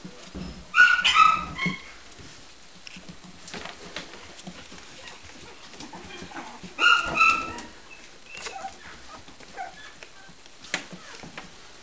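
Six-week-old Shichon puppies yipping in play: three quick high yips about a second in, and two more about seven seconds in, with a few light taps between.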